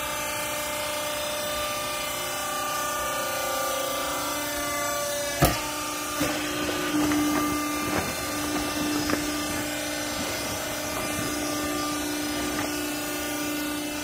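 Steady hum of a scrap-cloth baler's hydraulic power unit running. A single sharp knock comes a little over five seconds in, followed by scattered knocks and rustles as a woven bulk bag is fitted and handled at the machine.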